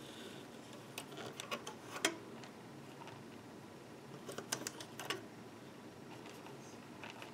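Small clicks and taps of rubber bands and fingers against the pegs of a plastic loom board as black bands are stretched on. They come in two short clusters, about one to two seconds in and again around four and a half to five seconds in.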